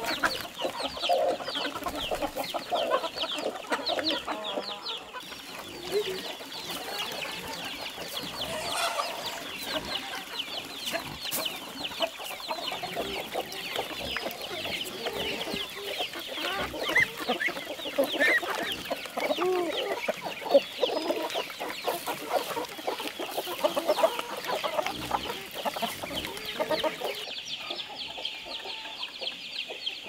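Chickens clucking, with the odd crow, over a steady, dense high chirping.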